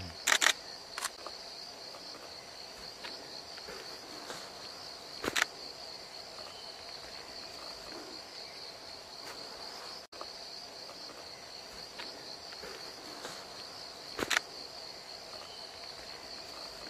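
Steady, high-pitched chorus of insects in tropical forest, with a few short sharp snaps or knocks breaking through: a cluster in the first second, another about five seconds in and one about fourteen seconds in.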